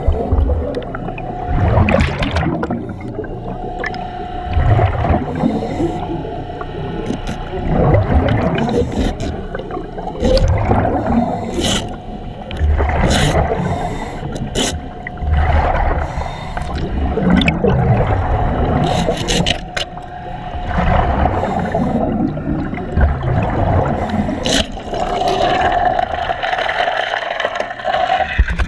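Diver breathing in a surface-supplied Kirby Morgan helmet: hiss of air through the regulator and rumbling exhaust bubbles surging every couple of seconds, with scattered clicks and a faint steady whine underneath.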